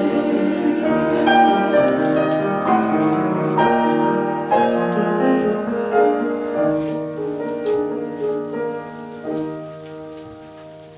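Piano playing the closing bars alone, a run of struck notes and chords that ring and die away, growing quieter over the last few seconds.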